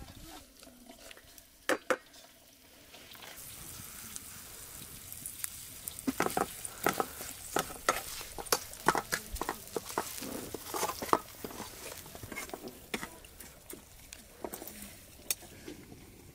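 Dried red berries sizzling as they fry in oil in a small metal frying pan, stirred with a wooden spoon that scrapes and clicks against the pan many times. Two sharp knocks come just before two seconds in, and the sizzle builds from about three seconds in.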